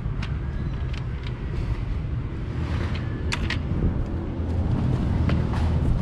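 A steady low rumble, with a few light clicks and knocks as plastic vacuum-cleaner extension tubes are handled, two of them close together about three and a half seconds in.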